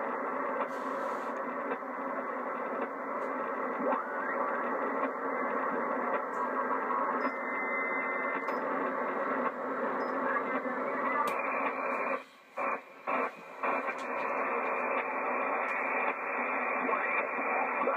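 Receiver audio from a Yaesu FT-757GX HF transceiver: band noise and static through the narrow sideband receive filter, with faint snatches of signals, as the set is tuned across the 20-metre band. About twelve seconds in the audio cuts out briefly three times as the set is switched to the 40-metre band, where the band noise carries on.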